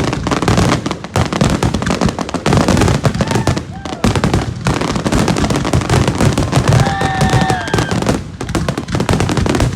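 Fireworks crackling and popping in a dense, rapid barrage of small bangs, with a short held tone about seven seconds in.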